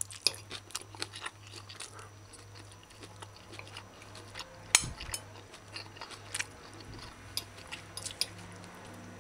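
A person eating chop suey with rice: a fork clicking and scraping on a plate and the crunchy chewing of pak choy, in many small irregular clicks, with one sharper clink about halfway through.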